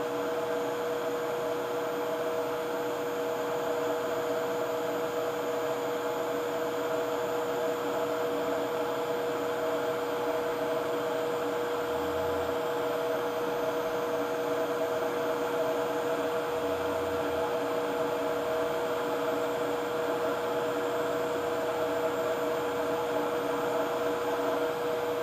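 Hot-air rework station blowing steadily: an even airflow hiss with a constant hum in it. It is reflowing solder paste into new balls on a BGA NAND flash chip being reballed.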